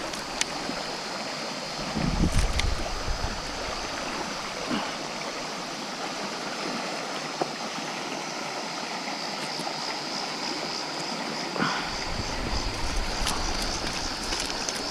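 Creek water running steadily over rocks, an even rushing sound, with a few faint clicks now and then.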